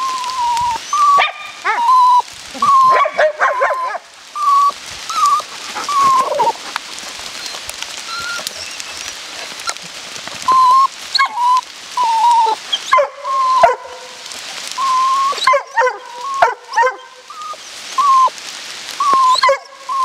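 Dogs whining and whimpering in short, high-pitched cries, some gliding up or down, repeated again and again over a steady background hiss.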